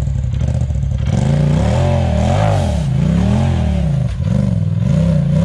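Side-by-side UTV engine running low, then revved up and down in about five surges from about a second in, under load as the machine tries to climb a rock ledge.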